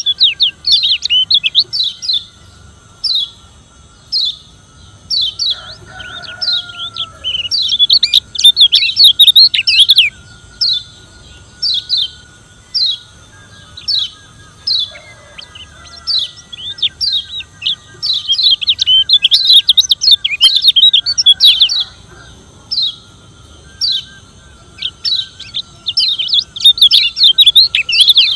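Lombok yellow white-eye (kecial kuning) giving its 'ciak' challenge call: short, sharp high chirps about once a second, breaking every several seconds into quick chattering runs.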